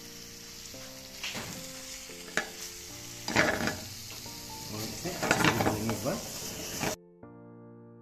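Tomato sauce and penne sizzling in a frying pan as a wooden spatula stirs and tosses them, in uneven strokes that grow louder after about three seconds, over background music. The sizzling cuts off suddenly about seven seconds in, leaving only the music.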